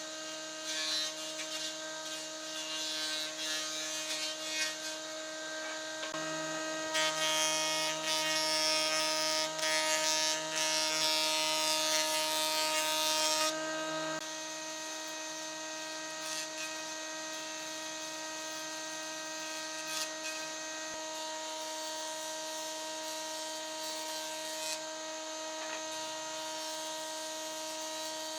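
Electric power tool running steadily with a motor whine, working wood; from about 7 to 13 seconds in it bites harder and a louder rough grinding hiss rises over the whine.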